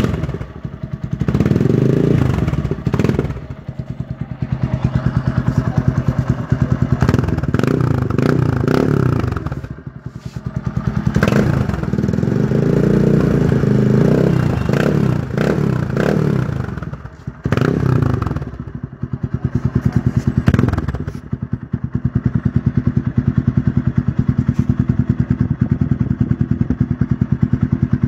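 TVS Apache RTR 180's single-cylinder engine running through an aftermarket slip-on muffler with its dB killer removed. It idles with a pulsing beat and is revved up and let fall back several times, then idles steadily through the last few seconds.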